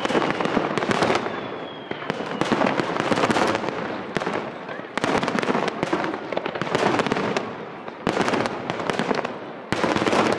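Aerial firework shells bursting in quick succession, sharp reports over a continuous crackle, with especially loud bursts about eight seconds in and again near the end.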